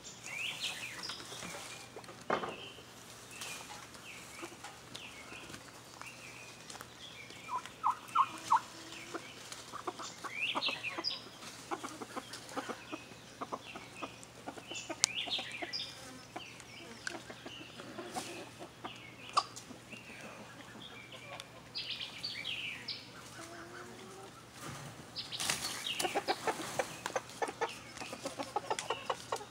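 Backyard chickens clucking and a turkey calling: scattered short clucks and higher calls, with a fast run of clucking near the end.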